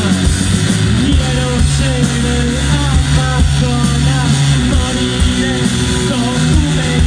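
Live rock band playing: a male singer's voice over electric guitars, bass and drums.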